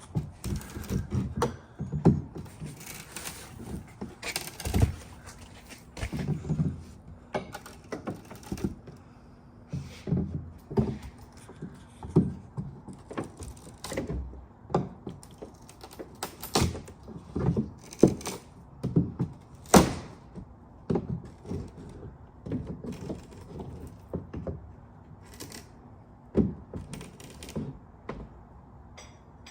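Irregular knocks, thunks and clatter of objects being handled and set down, coming about one a second with no steady rhythm.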